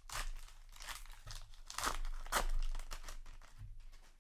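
Trading card booster pack wrapper crinkling and tearing as it is handled and opened, a run of sharp crackles with the loudest about two seconds in.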